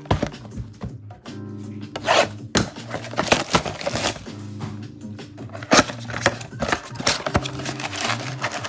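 Trading-card box and pack packaging being torn open and handled, in scratchy rustling and ripping bursts, over steady background music.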